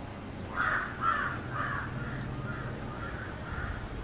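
A crow cawing: a run of about seven short caws, roughly two a second, the first three loudest and the rest fading.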